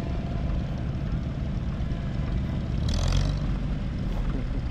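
Antique Farmall tractor's engine running steadily at low speed as the tractor creeps along, with a brief hissing rush about three seconds in.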